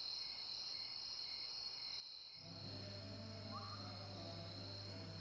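Crickets chirping faintly in a steady high trill, a night-time ambience. From about two seconds in, a low steady hum runs beneath them.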